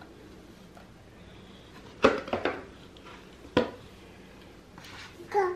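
Sharp knocks of a toddler's cardboard board book against a hardwood floor: a clack about two seconds in followed by a couple of lighter taps, and another clack about a second and a half later. A toddler starts babbling near the end.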